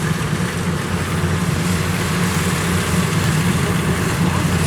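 Kubota DC93 combine harvester's diesel engine running steadily at a constant pitch as the machine moves across the muddy field.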